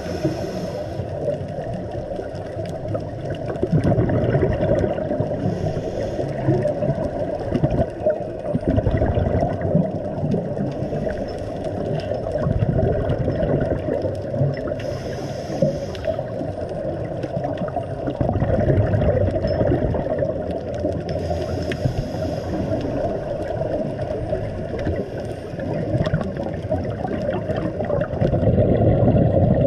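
Muffled underwater rumble and rush of water heard through a dive camera's housing, with a diver's regulator exhalation bubbles hissing and gurgling every several seconds.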